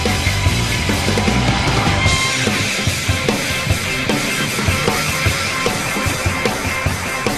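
Background rock music with a steady drum-kit beat; the drum hits stand out more clearly from about two seconds in.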